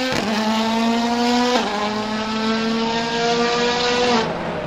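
A modern World Rally Car's engine at full throttle, its pitch climbing steadily with a sharp drop at an upshift about one and a half seconds in. Near the end the engine sound falls away to a quieter one.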